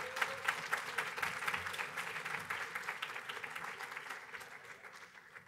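Audience applauding, the clapping fading away gradually toward the end.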